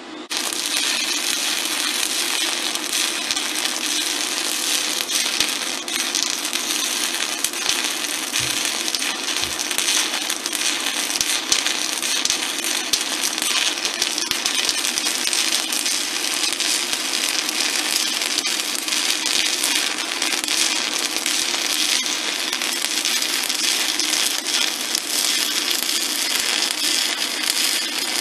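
Shielded metal arc (stick) welding arc crackling steadily from a 5/32-inch E7018 rod, struck about half a second in and held as one continuous bead. The SanRex SanStick 160S inverter feeding it runs on 110 volts through 100 feet of extension cord, at the edge of what the circuit can supply.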